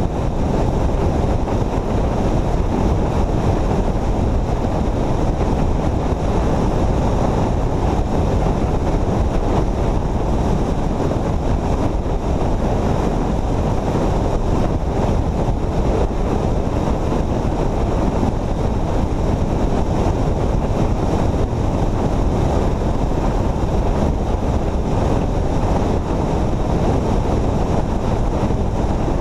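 Steady rushing wind on the microphone, mixed with road noise from a vehicle travelling at highway speed.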